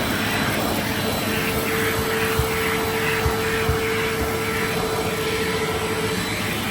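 Bissell Cleanview compact upright vacuum cleaner running steadily, its motor giving a constant whine over the rush of airflow, with a few brief low knocks in the middle.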